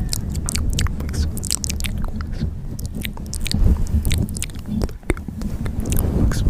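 Close-up sound of a bug eating: quick, irregular crisp crackles and clicks of chewing over a steady low rumble.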